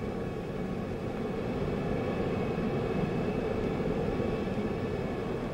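Douglas A-4 Skyhawk jet in flight, its engine making a steady rushing noise with a faint high whine.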